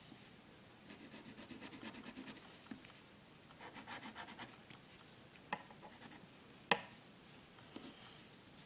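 Fineliner pen drawing on paper: two runs of quick scratchy strokes, then two sharp taps about a second apart, the second the loudest.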